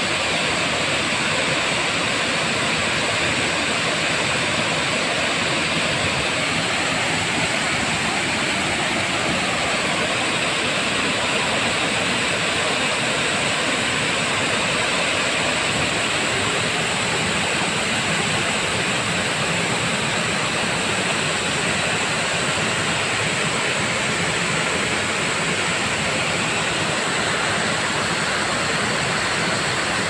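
Ten-metre waterfall: water falling and rushing steadily, an even noise that does not change.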